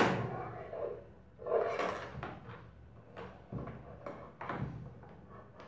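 Plastic clicks, taps and scrapes of handling as a programming cable's plug is worked into the port on a FlySky FS-CT6B radio transmitter. A sharp click right at the start is the loudest, followed by scattered smaller clicks and knocks.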